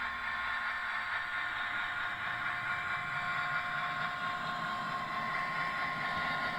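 Class 66 diesel locomotive sound from a Loksound v4 sound decoder, played through a model locomotive's small twin speakers: the engine running steadily, with a thin, tinny tone and a low hum that shifts slightly about half a second in and again around three seconds in.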